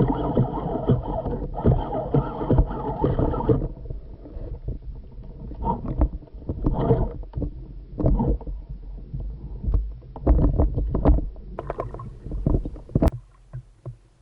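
Seawater sloshing and splashing around the camera, heavy for the first few seconds, then broken into irregular splashes and knocks, with one sharp click near the end.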